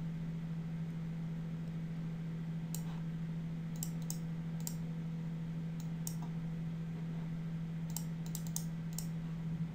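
Computer mouse buttons clicking about ten times, sharp single clicks that bunch together near the end, as the cursor works a software spinner arrow. A steady low electrical hum runs underneath.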